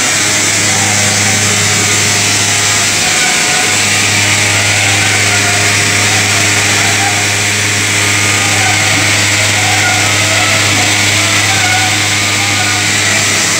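Rotary drum sawdust dryer running: a loud, steady machinery noise from the drum drive and plant over a constant low hum, which drops out briefly about three seconds in.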